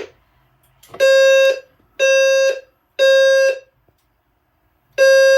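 EST Genesis low-frequency fire alarm sounder blaring in the temporal-3 evacuation pattern: three half-second blasts, a pause, then the next cycle starting near the end.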